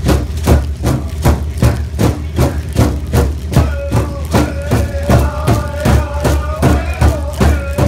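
A big drum struck in unison by a circle of seated drummers, a steady beat of about three strikes a second; from about three and a half seconds in, high held singing voices join over the drum. A steady low hum from the boat's engine runs underneath.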